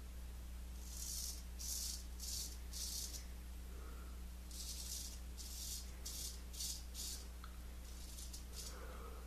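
Gold Monkey 777 straight razor scraping through lathered stubble on the cheek in short strokes, a raspy scratch roughly twice a second: four strokes, a pause, five more, then a couple of fainter ones near the end.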